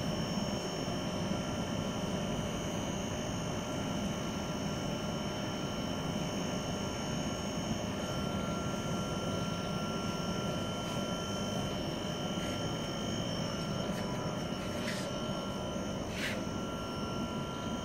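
A 200 kWe biomass fluidized bed gasifier running: a steady rushing noise from its air blower and the syngas flare burning at the stack, with several constant high whining tones on top. Two short clicks come near the end.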